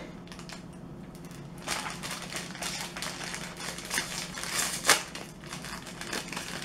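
Ice cream bar wrapper crinkling and crackling in irregular bursts as it is handled and opened, starting about two seconds in, with the sharpest crackle near five seconds.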